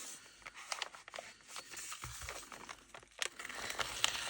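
Packaging crinkling and rustling as a small kit is handled and opened by hand, in irregular short strokes.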